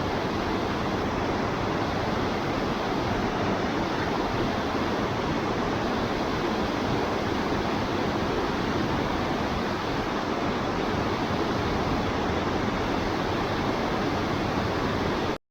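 Waterfall: a steady, unbroken rush of falling water that cuts off suddenly at the very end.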